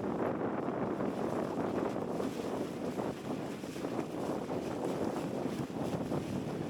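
Wind buffeting an action camera's microphone in strong wind on open water: a dense, unbroken rushing noise that flickers up and down without letting up.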